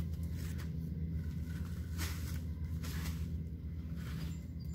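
Hands digging and rummaging through damp potting soil, giving a few short rustling scrapes, over a steady low hum.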